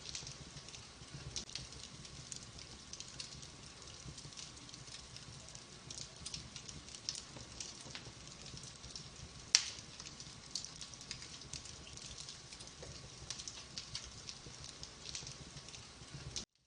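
Wood fire crackling in a fireplace: a steady scatter of small snaps over the low rumble of the flames, with one sharp, loud pop about halfway through. The sound cuts off abruptly just before the end.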